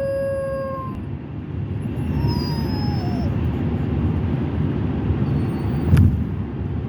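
Puppy crying in a crate, unhappy at being confined: a long, steady high whine that ends about a second in, then a shorter cry that rises and falls, over the low rumble of car road noise. A sharp knock near the end.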